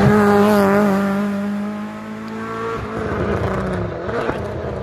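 Rally car engine running hard at a high, steady note that slowly fades as the car moves off. A few seconds in, the sound changes to a rougher, fainter engine noise as another car comes along.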